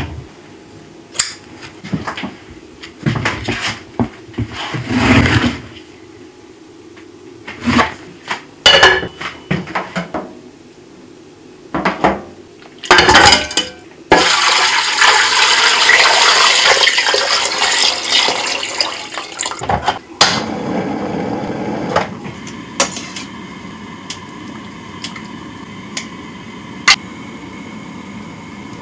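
Water poured from a pot into an aluminium pressure cooker over bones, an even, loud splashing for about six seconds. Before it come scattered light knocks and rustles of handling. After it there is a steady hum of the pot on the boil, with a sharp click of metal tongs near the end.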